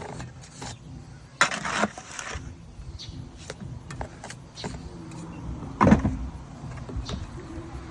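Type S mortar being scraped and packed into the rotted hollow of a log, a run of scrapes and knocks, with a longer rough scrape about a second and a half in and a heavier knock near six seconds.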